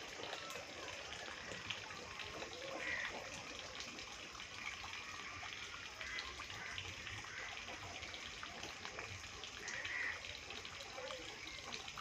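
Water running and trickling steadily into a pond, with a few faint brief sounds above it.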